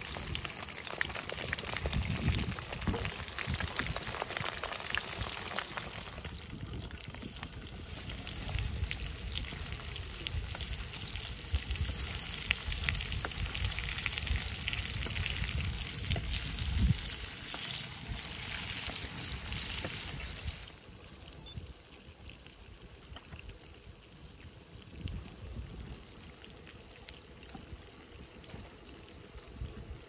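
Beef liver frying in hot rendered fat in a wide open pan, a dense sizzle with constant fine crackling. The sizzle drops off suddenly about two-thirds of the way through and goes on much quieter.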